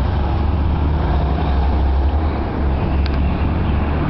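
Steady low rumble of street traffic, with no church bells ringing.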